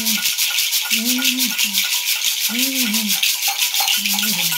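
Gourd rattles, one wrapped in a bead net, shaken in a fast, even rhythm, with small metal bells tied to them jingling along. Over them a low voice chants drawn-out, wordless sung notes, a new phrase about every second and a half.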